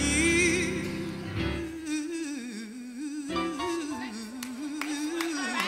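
Gospel song: a single voice sings a long, wavering melodic line with vibrato. The fuller band backing drops away after about two seconds, leaving the voice nearly alone.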